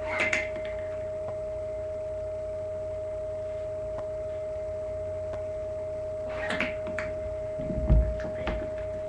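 A steady high electrical hum throughout. Over it come a short sharp snap near the start, a cluster of rustling and clicking handling noises of a homemade paper toy rifle a little after six seconds in, and a dull thump close to the microphone about eight seconds in, the loudest sound.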